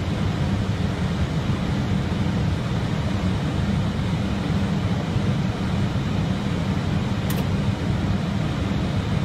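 Steady drone of an airplane in flight heard from inside the aircraft: engine and airflow noise, heavy in the low end, with a brief faint click about seven seconds in.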